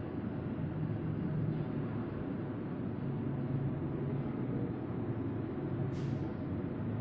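Steady low background rumble and hiss with no clear source, and a single sharp click about six seconds in.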